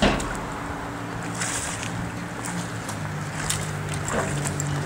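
A hooked salmon splashes sharply at the water's surface once, then churns more faintly as it is played close in. A steady low hum runs underneath.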